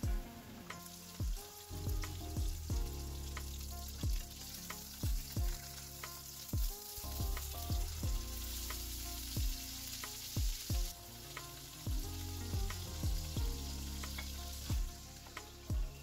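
Food sizzling in a frying pan: mushrooms in a cream sauce stirred with a spatula, then a steak frying in oil, with the sizzle loudest about halfway through. Background music with a steady kick-drum beat plays over it.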